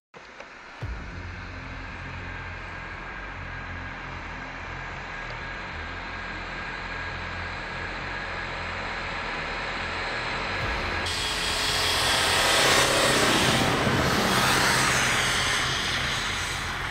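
Mazda pickup truck engine running as it drives through deep snow, growing louder as it approaches. About two-thirds of the way through a loud hiss of churning tyres and spraying snow joins it, peaking as the truck passes close, with the engine note falling as it pulls away.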